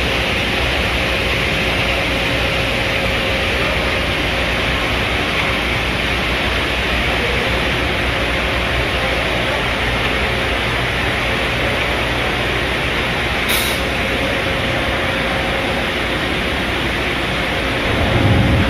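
Steady industrial machinery noise from a retort basket conveyor line: a dense hiss with a faint steady hum. A brief sharp high click comes about two-thirds of the way through, and a louder low rumble sets in near the end.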